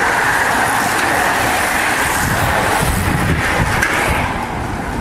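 A bunch of road racing bicycles passing close by: a steady whir of tyres on asphalt and drivetrains. Wind rumbles on the microphone from about halfway through.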